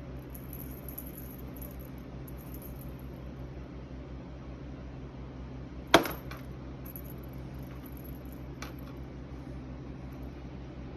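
A single sharp clink about six seconds in, like a small hard object knocked or dropped, followed by a fainter tick a couple of seconds later. Underneath is a steady low hum.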